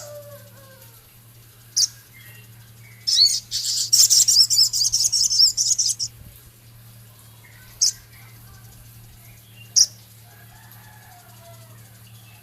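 Male sogon bird singing: a few short, sharp high notes and, about three seconds in, some three seconds of loud, rough high-pitched chattering. A steady low hum runs underneath.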